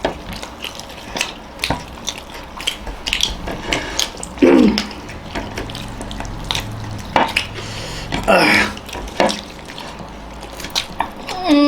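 People eating at the table: wet chewing and smacking with many small clicks and clinks of dishes, and two short falling vocal sounds about four and eight seconds in.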